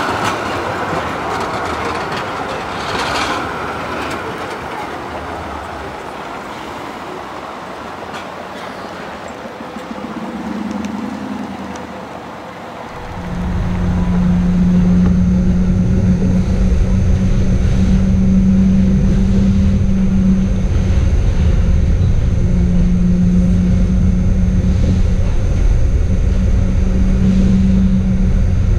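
A Schindler Waggon Be 4/6 articulated tram rolls past on street track with a few clicks, its noise fading away. About thirteen seconds in, a loud steady low rumble with a hum takes over: the tram heard from inside its saloon while running along.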